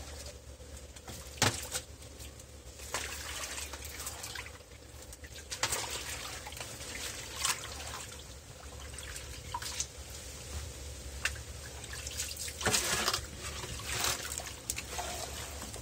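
Shallow water splashing and trickling in irregular bursts, with a few sharp clicks and a louder splash about thirteen seconds in.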